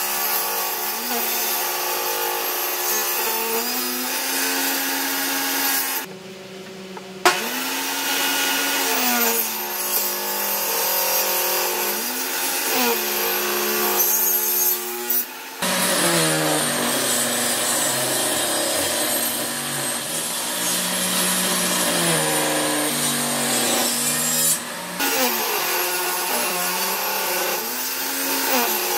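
Table saw running and cutting a groove along a pine board, the motor's pitch sagging repeatedly as the blade bites into the wood and recovering as the load eases.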